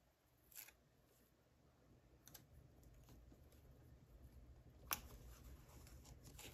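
Near silence with a few faint, short clicks and taps of small objects being handled, the sharpest just before five seconds in.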